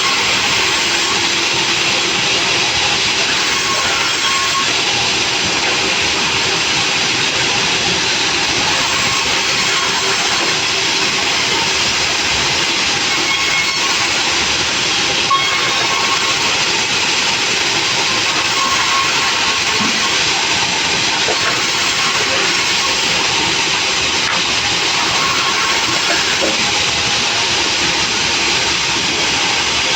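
Sawmill saw running, a loud, steady, even noise that holds without a break, with a faint steady hum underneath.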